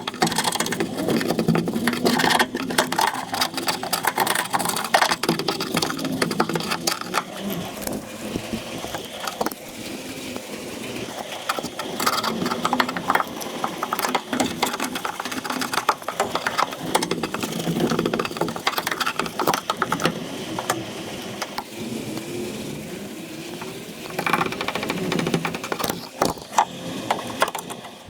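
Irregular clicking, knocking and rattling from hands-on work with tools and parts.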